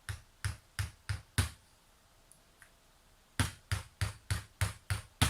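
Tongue-and-groove (parrot-beak) pliers tapping lightly on a laptop's USB port to knock its loose contacts back into place: five taps, a pause of about two seconds, then seven more at about three a second.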